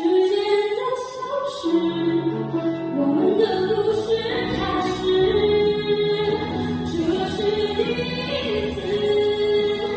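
A singing voice holding long notes and gliding between them over backing music.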